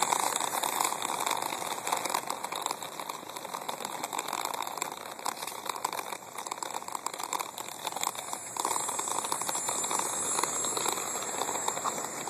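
Small wheels of a rolling pet carrier running over an asphalt driveway: a steady gritty, crackling noise that eases briefly about six seconds in.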